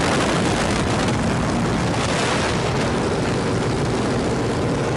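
Cockpit noise of a Hawker Hurricane Mk XII in flight: its Rolls-Royce Merlin 29 V-12 running steadily at cruise power, mixed with airflow rushing past the cockpit.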